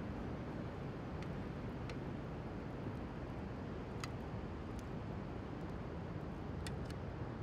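Steady low rushing of wind and surf on the beach, with a few faint sharp clicks scattered through it.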